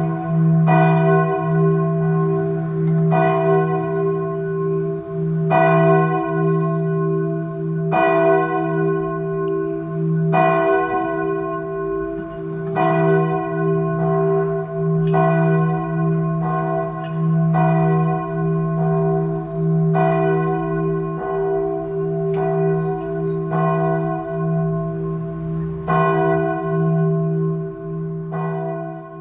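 Church bells ringing: a struck stroke every second or two, with the notes ringing on and overlapping into a steady hum beneath the strokes.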